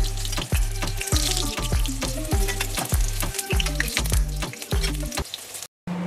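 Oil sizzling as dough pies fry in a pan, under background music with a steady bass beat. Both stop abruptly near the end.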